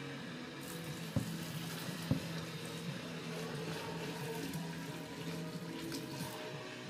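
Boiling water poured in a steady stream into a plastic bin in a stainless steel sink, starting about half a second in and stopping shortly before the end. Two sharp knocks about one and two seconds in, with background music underneath.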